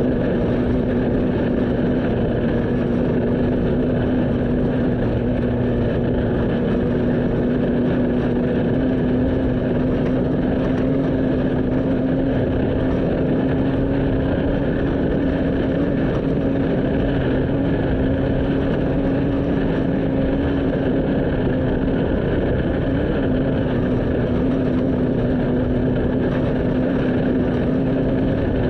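Vehicle engine running at a steady speed: one constant drone over an even rush of road and wind noise, with no revving or breaks.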